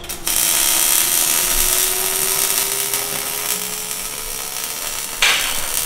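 MIG welder arc crackling steadily as a bead is laid on steel, with a brief sharper burst about five seconds in.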